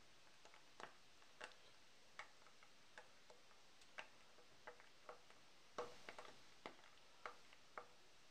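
Hot fat in a frying pan popping and crackling as slices of sausage fry in it: sharp, irregular pops, one or two a second, over a faint sizzle.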